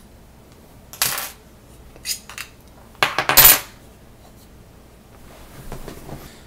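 Small metal hex keys clattering as they are put down on a desk: a brief clatter about a second in, a couple of lighter clicks, and a louder clatter around three seconds in.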